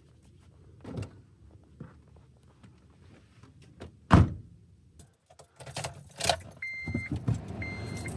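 A car door, likely the Honda Element's, shuts with a single loud thunk about four seconds in, amid rustling and handling knocks; near the end come two short, steady electronic beeps.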